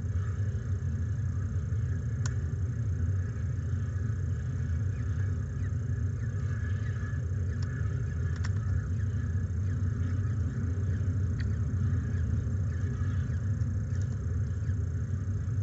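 Steady low rumble on an outdoor nest-box webcam microphone, with a few faint clicks and faint short chirps scattered through it.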